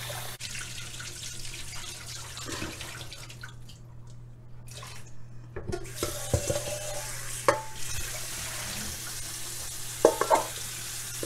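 Kitchen tap running into a stainless steel bowl as shelled green pigeon peas are swished and rinsed by hand. The water sound fades for about two seconds near the middle. Several metal clanks follow from the bowl and a colander knocking in the steel sink, with a cluster of them near the end.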